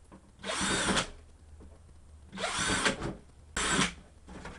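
Power drill boring ventilation holes through the side wall of a plastic storage bin: three short bursts, each under a second, the motor whine rising as it spins up and falling away as it breaks through and stops.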